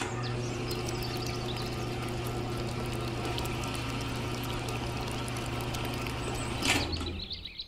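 Small DC gear motor turning a miniature cement mixer's drum, running with a steady hum while the wet mix churns inside. It switches off about a second before the end.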